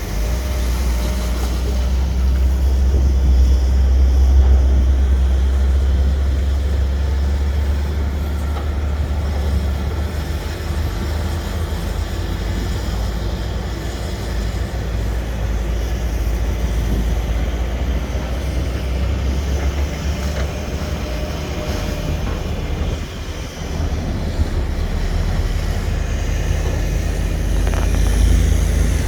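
Diesel engine of a SANY hydraulic excavator working under load, a steady low drone that swells and eases as it digs, dipping briefly about three quarters of the way through and picking up again near the end.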